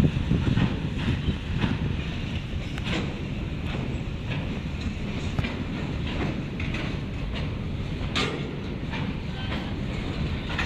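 Freight train's box wagons rolling past with a steady low rumble and irregular sharp clicks from the wheels running over the track. The rumble is loudest at the start and then settles.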